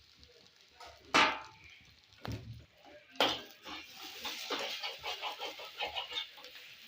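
Kitchen utensils knocking three times, the first knock the loudest with a short ring, then a run of quick, irregular scraping strokes.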